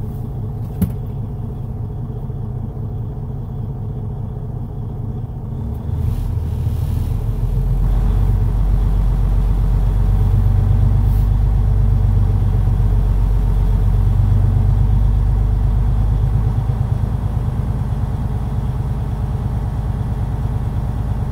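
Semi-truck diesel engine idling, heard inside the cab, while its air compressor builds brake air pressure toward 120 psi. The engine gets louder and deeper about six seconds in and eases back somewhat about sixteen seconds in. There is a single click about a second in.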